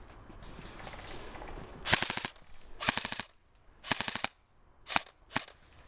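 Airsoft gun firing three short full-auto bursts of rapid clicks about a second apart, then two single shots close together near the end.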